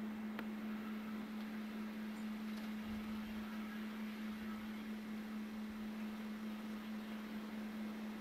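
A steady low-pitched hum, one unchanging tone, over a faint hiss.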